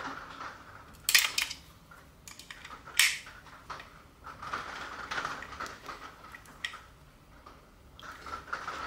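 Small clicks and scraping of a gas magazine valve being turned with a valve tool and screwed into a plastic HPA adapter, with sharp clicks about a second in and about three seconds in.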